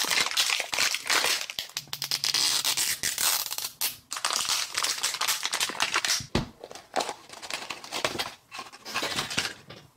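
Clear plastic shrink-wrap seal crinkling and crackling as it is peeled and torn off a plastic Mini Brands capsule ball by hand.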